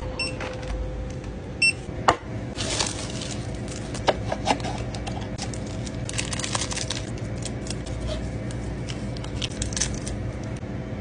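Plastic food packaging crinkling and tearing, with scattered clicks and taps as the wrappers and a sauce packet are handled. Two short electronic beeps about a second and a half apart near the start.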